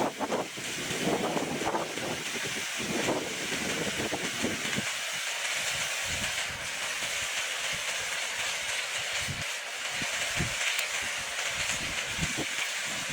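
Steady hissing noise, with irregular low knocks and thumps that are denser in the first few seconds.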